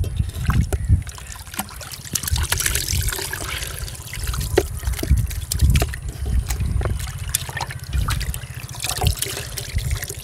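Water sloshing and trickling as raw chicken pieces are swished and rinsed by hand in a metal bowl of water, with many small splashes.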